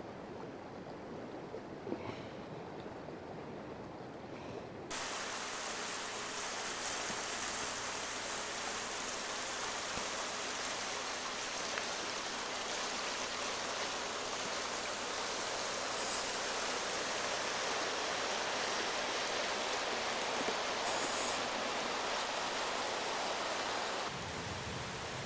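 A shallow river running over stones in a steady rushing hiss. It turns abruptly louder and brighter about five seconds in and drops back just before the end.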